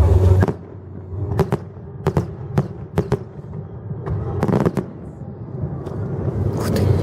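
Fireworks going off: a string of sharp bangs at uneven intervals, several coming in quick pairs.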